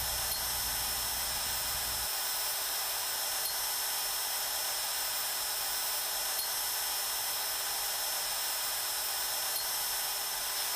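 Hougen 10950 cutter sharpening machine's grinder motor running steadily with a thin high whine; a low hum underneath drops away about two seconds in.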